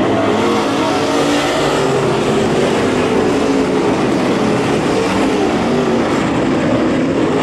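A pack of dirt late model race cars running on a dirt oval, several V8 engines at once, their pitches rising and falling against each other as the cars go through the turns.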